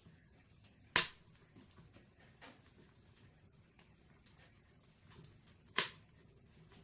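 Wood fire burning in a fireplace: faint scattered crackles and two loud sharp pops of burning logs, one about a second in and one near the end.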